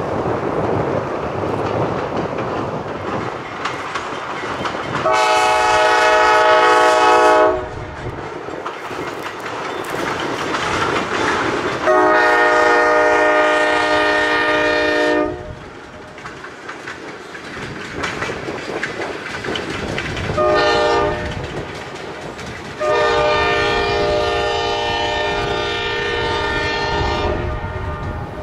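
ALCo RS11 diesel locomotive sounding its multi-note air horn in the grade-crossing pattern: long, long, short, long. Between the blasts comes the steady rumble of the passing freight train's wheels on the rails.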